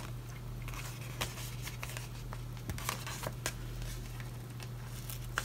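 Soft rustling and a few light clicks of a paper sticker sheet being handled over an open planner, over a steady low hum.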